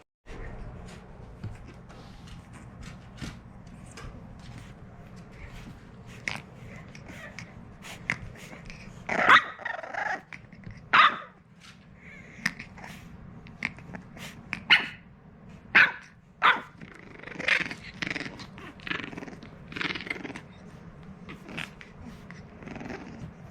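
French Bulldog puppy barking and growling in short bursts, most of them in the second half, over a low steady hum.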